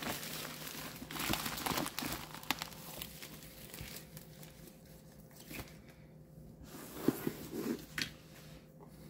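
Bubble-wrap packaging crinkling and rustling as a cardboard box is pulled out of it, busiest over the first three seconds. After that, quieter handling of the box with a few light knocks.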